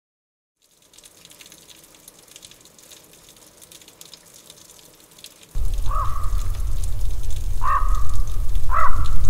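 Opening sound effects for a horror film, over faint crackle. A deep low rumble comes in abruptly about halfway through, and three short crow caws sound over it.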